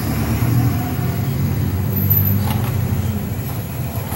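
Misaki multiband portable radio buzzing from its speaker with a loud, steady low mains hum, a fault the technician thinks may lie in the power supply. A light knock from handling the plastic case comes about midway.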